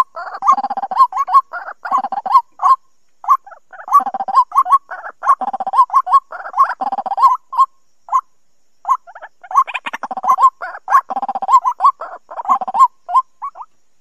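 White-breasted waterhen calls, a rapid run of short harsh notes several times a second with brief breaks, including one about eight seconds in. It is a recorded call used as a trapping lure.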